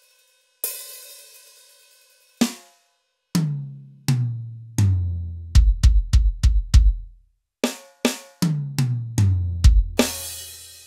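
Roland TD-11K electronic drum kit's sampled sounds, recorded direct with no room noise between strokes, as each pad is struck in turn. A cymbal crash rings out, then single tom hits step down in pitch, a quick run of very low drum hits follows, another run of toms goes down in pitch, and a second crash comes near the end.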